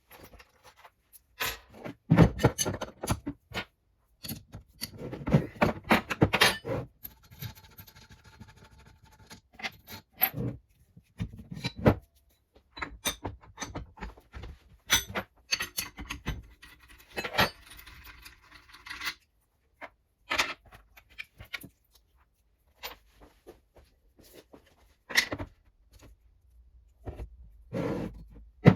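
Small metal parts of classic Mini radius arms being handled and worked on a bench: irregular clinks and knocks, with two longer stretches of metallic rattling and scraping.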